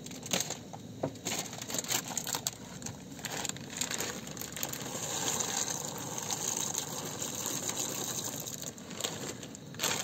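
A plastic bag of dried thimble pasta crinkles as it is handled. About four seconds in, the dry pasta pours from the bag into a pot of boiling water in a steady rattling stream that lasts several seconds, then the bag crinkles again near the end.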